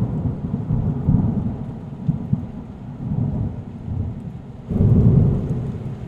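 Thunder rumbling, dying down and then swelling into a second loud rumble about five seconds in.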